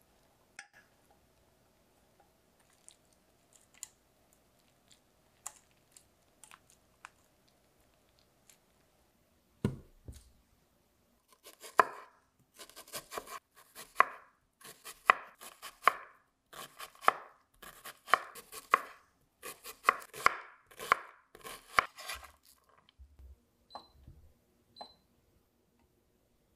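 Chef's knife chopping an onion on a bamboo cutting board: a steady run of sharp strikes, about two a second, for roughly ten seconds. It starts about twelve seconds in, after a few faint ticks and a single thump, and is followed by a few lighter knocks.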